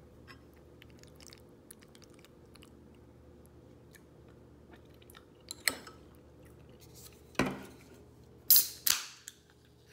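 Faint clicks of eating with a metal spoon from a bowl over a low steady hum, then a few sharp knocks and clinks of tableware on a wooden table, the loudest near the end.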